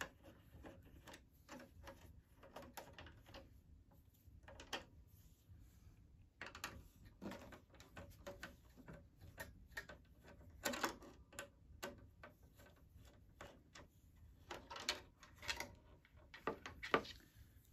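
Screwdriver backing out the screws that hold the front bezel of an iMac G3's plastic case: faint, irregular small clicks and scrapes of the driver tip and screw.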